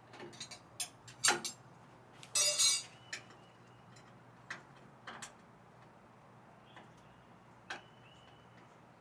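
Scattered, irregular clicks and light knocks of objects being handled, with a short rasping scrape about two and a half seconds in.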